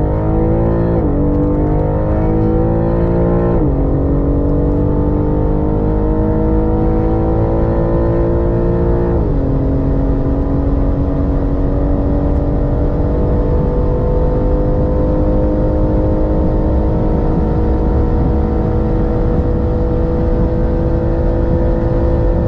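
BMW M3 engine at full throttle, accelerating hard through the gears. Its pitch climbs, drops suddenly at three upshifts about one, three and a half and nine seconds in, then rises slowly through one long pull in top gear.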